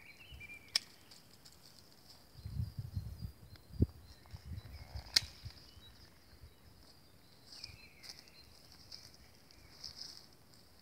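Long-handled loppers snipping through woody blueberry canes: two sharp snips about four seconds apart. Between them there is a low rumbling and a knock, and faint birdsong chirps in the background.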